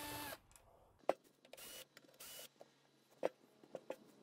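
Cordless drill with a Torx bit running at a steady speed, backing out an inverter cover screw, then stopping about a third of a second in. After it come a few sharp knocks as the metal inverter case is handled and turned over, the loudest a little past three seconds, and two brief whirs near the middle.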